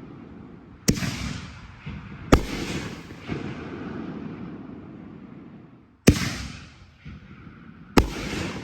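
5-inch canister fireworks shells going off: four sharp, loud booms with smaller pops between them, each followed by a long rumbling echo.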